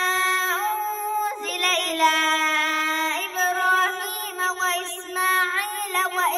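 A young girl reciting the Quran in a melodic, chanted tajweed style, drawing out long held notes that step up and down in pitch.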